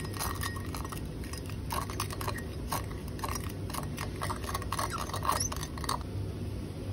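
Metal spatula stirring a wet sand-and-salt mixture in a small glass beaker, clinking and scraping against the glass in quick, irregular strokes. The stirring stops about a second before the end.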